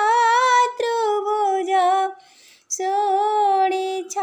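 A high solo female voice singing a verse of an Odia devotional bhajan to Jagannath, in long held notes with ornamented pitch wavers. There is a short breath pause a little past halfway.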